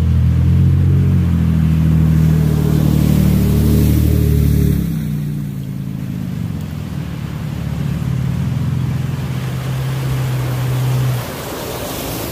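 Pickup truck engines under throttle as the trucks drive through a shallow creek, with water splashing and rushing around the tyres. One engine's steady note dominates for the first five seconds and then drops away; a second engine note comes in later and cuts off near the end as a truck ploughs past close by, throwing water.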